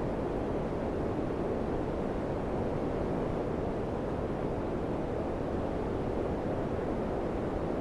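Daikin FCQ100KAVE4 air conditioner running, a steady low rush of moving air with no changes in level.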